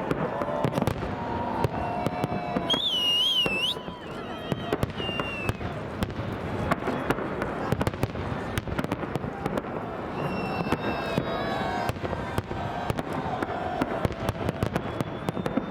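Fireworks salute going off: a dense, irregular string of bangs and crackles, with people's voices and a high wavering cry about three seconds in.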